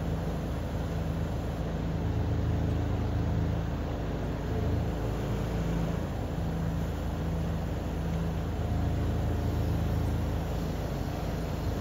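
Diesel engine of a truck-mounted loader crane running steadily, a low hum whose pitch shifts slightly now and then as it drives the crane.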